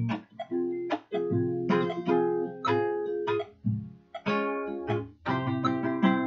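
Acoustic guitar strumming chords in a steady rhythm, the chords ringing between strokes, with no singing: an instrumental passage of a guitar song.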